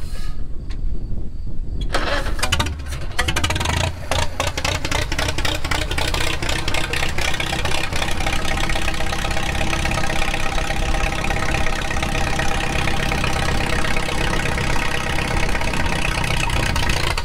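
Farmall H tractor's four-cylinder engine firing up about two seconds in, running unevenly for a couple of seconds, then settling into steady running through its straight exhaust pipe.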